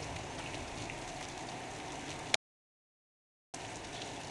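Heavy thunderstorm rain falling steadily, an even hiss. A little over two seconds in, a sharp click and the sound cuts out completely for about a second before the rain comes back.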